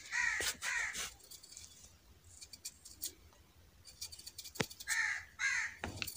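A crow cawing: two harsh caws near the start and two more about five seconds in. Faint clicks of a knife peeling a potato come in between.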